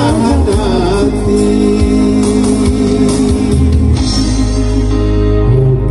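Live Minang pop song: a man's voice singing over Yamaha keyboard accompaniment, with a continuous bass line and held chords.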